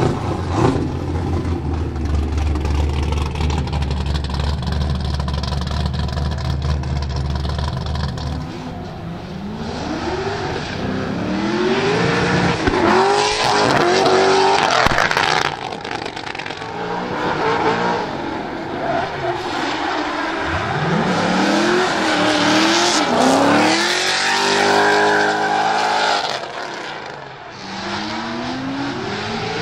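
Mast Motorsport LS7 V8 in a Nissan 200SX S13 drift pick-up, running at a steady low rumble for about the first eight seconds. It then revs hard over and over as the car launches and drifts, the pitch climbing and falling through throttle stabs and gear changes.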